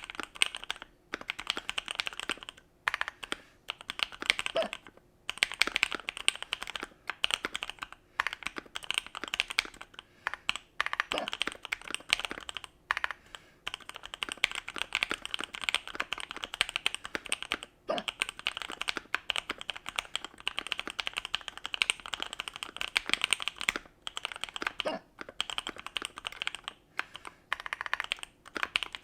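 Fast typing on a computer keyboard: a dense run of key clicks in stretches with brief pauses. A short hiccup cuts in about every seven seconds, four times in all.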